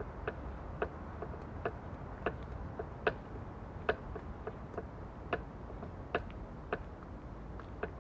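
Two stones tapped together in slow, irregular clicks, about one or two a second, over a low steady rumble of city background.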